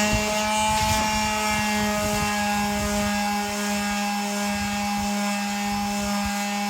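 Electric sander motor running at full speed with a steady, even-pitched whine. It is a sander that keeps cutting out, which the user blames on a voltage problem.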